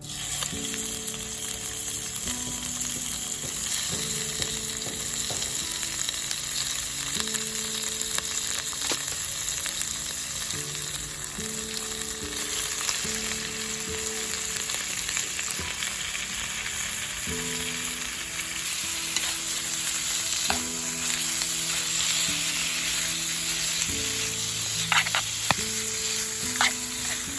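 Pork and kimchi sizzling steadily in a frying pan while being stirred, with a few sharp clicks of a utensil against the pan near the end.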